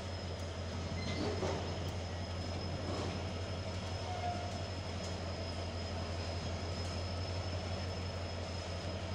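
Diesel-hauled passenger train running past or standing with its locomotive working, a steady low drone with no horn.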